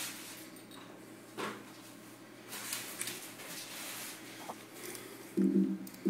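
Faint scratches and taps of an African grey parrot's claws moving across a desk and onto a computer keyboard. Near the end, a loud low buzzing tone starts.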